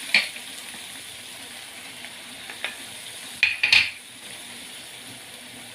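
Chicken cubes frying in oil in a pan, a steady sizzle, with a utensil knocking and clinking against the pan: once at the start, faintly mid-way, and in a loud cluster a little before four seconds in.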